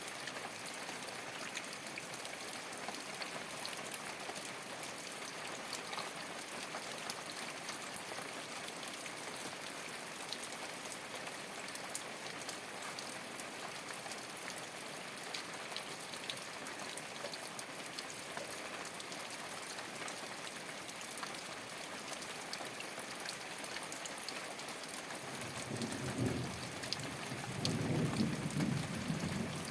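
Steady rain falling on a thatched straw roof: a dense patter of drops with many small ticks. A low rumble rises for a few seconds near the end.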